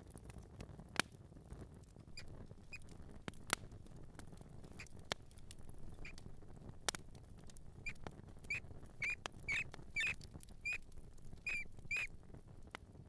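Mouse squeaking: short high chirps, a few scattered early on and then a quick run of them in the second half. A few sharp clicks stand out as the loudest sounds, over a faint low rumble.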